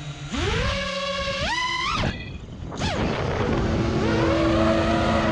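6S FPV quadcopter's brushless motors spooling up from idle: a whine that rises in pitch in steps for about two seconds, then cuts off sharply as the throttle is chopped. After a short dip and a quick falling blip, the motors settle into a steady whine over a rushing hiss.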